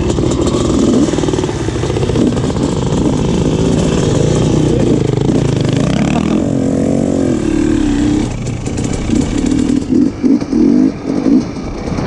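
Several dirt bike engines running together at low revs, then revving up with a rising pitch about halfway through as the bikes pull away. Near the end the engine pitch and loudness rise and fall in quick pulses with on-off throttle as the bike rides along the dirt trail.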